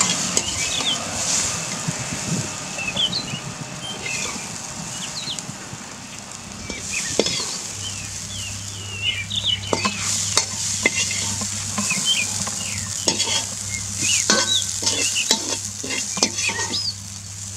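Steel slotted spatula scraping and clinking against a steel kadhai as cooked bamboo shoots are scooped onto a plate, the strokes coming thick and fast in the second half. Birds chirp throughout.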